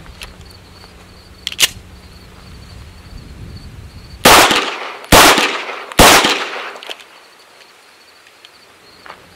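Three pistol shots, a little under a second apart, each with an echoing tail. A faint click comes earlier as the pistol is picked up and readied.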